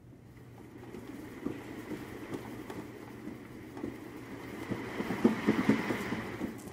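Cat exercise wheel spinning under a running Maine Coon: a rolling rumble with rapid thumps of paws on the track, growing louder toward the end and dropping away just before it, with a faint steady high whine underneath.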